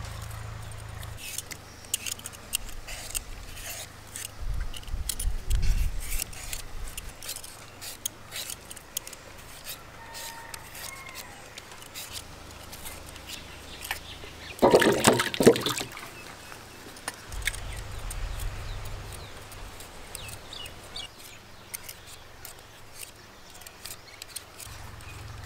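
Hand potato peelers scraping skins off raw potatoes: a string of small scrapes and clicks, with a louder clatter lasting about a second around the middle.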